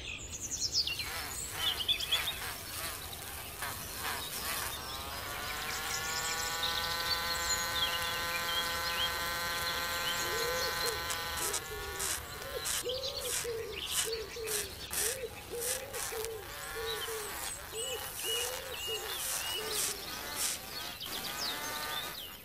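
Small electric motor of a miniature model tractor whining steadily as it spins a belt-driven grinding wheel. From about ten seconds in, a tiny sickle blade is held against the wheel: scratchy grinding clicks, with the motor's pitch wavering up and down under the load.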